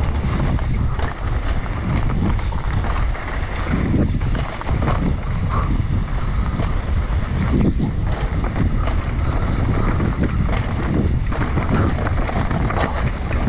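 Wind buffeting a helmet camera's microphone during a fast downhill mountain-bike descent, over the rumble of tyres on a dirt trail, with frequent knocks and rattles from the bike over bumps.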